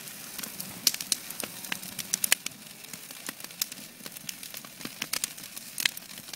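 Wooden pallet fire crackling, with sharp irregular snaps and pops, several a second, over a faint hiss of the flames.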